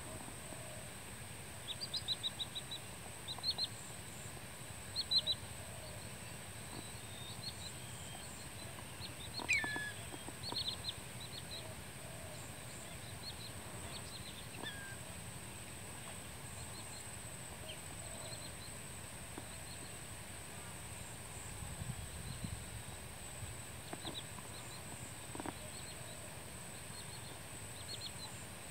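Short, high chirping calls of wading birds in a flock, coming in scattered clusters of a few notes with quiet gaps between, one call sliding downward in pitch about nine seconds in.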